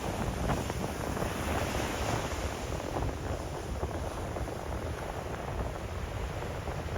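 Sea waves washing steadily onto the shore, swelling a little in the first two seconds, with wind rumbling on the microphone.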